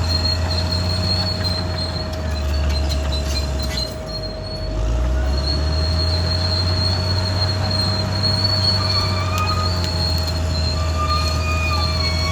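Caterpillar D6R XL bulldozer's diesel engine running hard, with high squeals from its steel crawler tracks. The engine drops back about four seconds in, then pulls up again.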